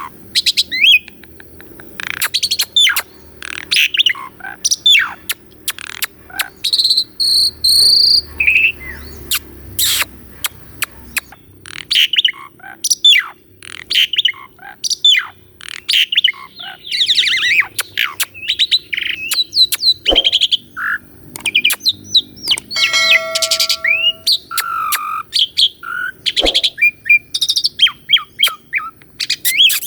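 Pied starling (jalak suren) singing a long, varied song of rapid chirps and whistled sweeps, broken by a few held whistle notes.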